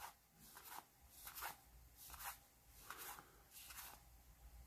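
Faint swishes of baseball cards sliding against one another as a stack is leafed through by hand, one card moved about every three-quarters of a second.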